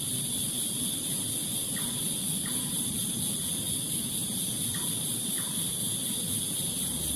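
Steady chorus of night insects, crickets, making a continuous high-pitched trilling, with a faint short call repeated in pairs a few times over a low background hiss.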